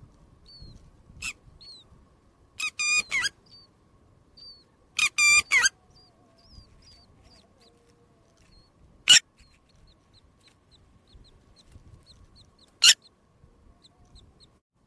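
Birds calling: a run of faint, short, high peeps, broken twice by a loud, harsh three-note call. Two sharp clicks come later, one in the middle and one near the end.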